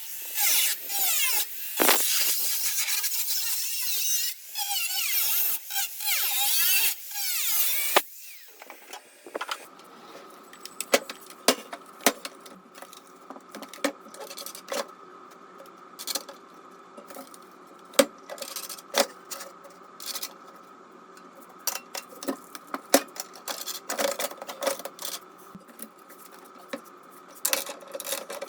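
A power tool cutting sheet metal in loud bursts with a squealing edge for about eight seconds. It then cuts off suddenly to a quieter steady hum with scattered metallic taps and knocks.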